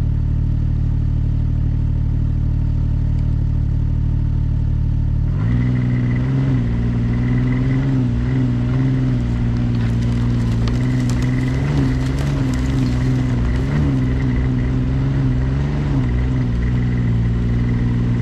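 Ski-Doo Skandic 900 ACE snowmobile's three-cylinder four-stroke engine running at a steady speed, then picking up revs about five seconds in and rising and falling with the throttle while under way. Some clatter joins it in the middle stretch.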